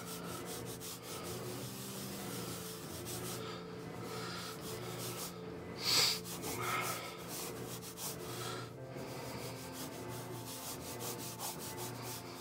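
Colored pencil scratching across newsprint in quick, loose back-and-forth and circling sketch strokes, with a brief louder noise about six seconds in.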